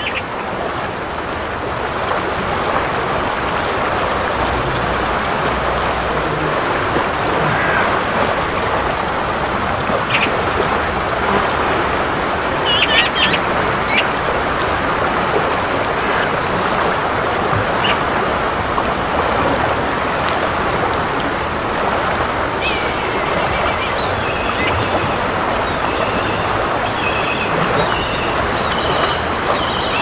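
Mountain river rushing steadily over its bed, a loud, even wash of water. A few short high calls cut through it near the middle, and a run of short repeated high calls follows through the last several seconds.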